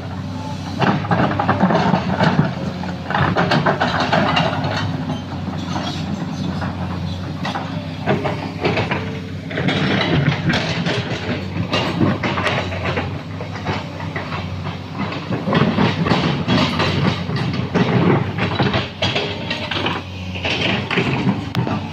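Heavy earthmoving machine working: its engine runs steadily under many clanks and rattles of metal and rock.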